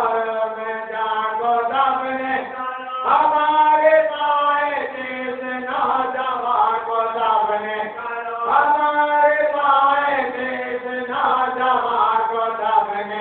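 A voice chanting in long, held melodic phrases, a new phrase starting every two to three seconds.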